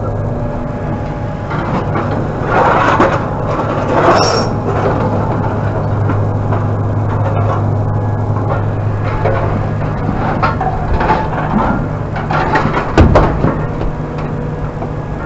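Idling vehicle engine, a steady low hum, with a few rustling handling noises over it and a sharp knock about thirteen seconds in.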